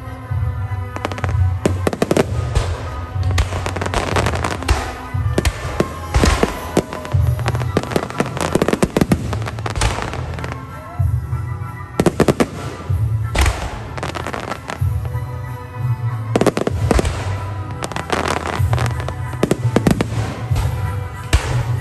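Aerial firework shells bursting one after another in a dense, irregular string of sharp bangs, with music playing underneath.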